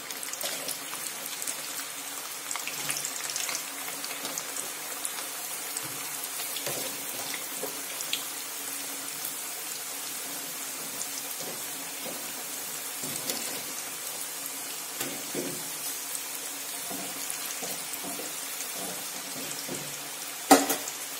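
Frozen potato fries deep-frying in hot oil: a steady sizzle of fine bubbling and crackling as the ice and moisture on them boil off. A sharp click near the end.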